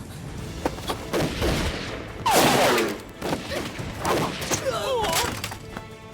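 Gunfire, with repeated shots, mixed with men shouting and crying out; the loudest burst of yelling and noise comes a little over two seconds in.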